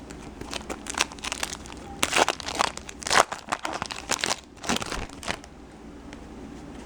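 Crinkling and tearing of a trading-card pack's foil wrapper as it is torn open by hand: a run of irregular crackles and rips over about five seconds, loudest in the middle.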